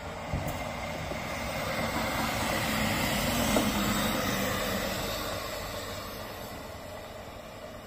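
Regional passenger railcar passing close by on the track, its running sound building to a peak about three and a half seconds in, with a single wheel click there, then fading as it draws away.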